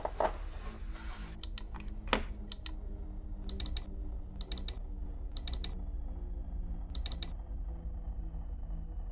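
Computer mouse clicking: a few single clicks, then short rapid clusters of clicks several times, over a low steady hum.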